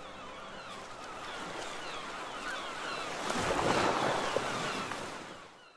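Surf washing against a rocky shore, swelling about three seconds in, with many short falling bird chirps over it; it all fades out near the end.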